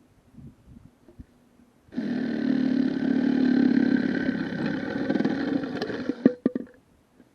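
Bamboo culm splitting as a six-way bamboo splitter is forced along it: a loud, sustained ripping sound that starts suddenly about two seconds in and lasts about four seconds, ending in a few sharp cracks.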